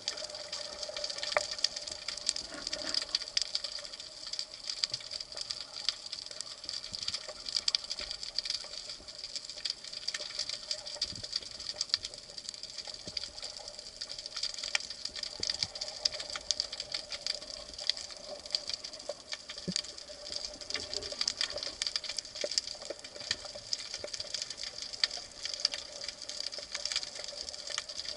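Underwater ambience along a rocky reef: a dense, irregular crackle of small clicks, over a steady high-pitched whine.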